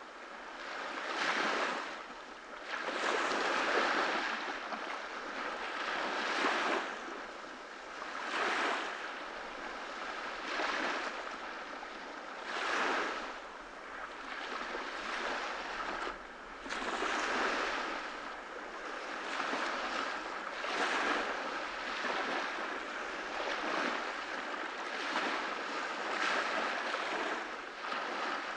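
Small ocean waves breaking and washing on a beach. The surf rises and falls about every two seconds.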